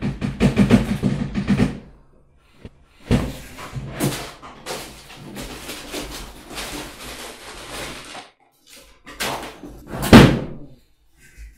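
Wooden desk drawer pulled open with a rattle, papers rustled and shuffled inside it, then the drawer shut with a loud thud about ten seconds in.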